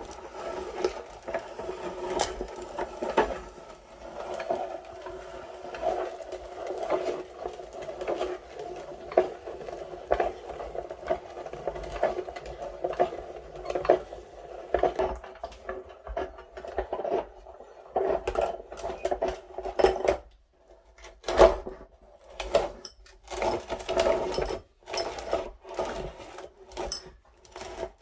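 Electric meat grinder running with a steady motor hum and many sharp cracks and crunches as it grinds Kinder Surprise eggs. The hum drops out briefly about twenty seconds in, and again a few seconds later.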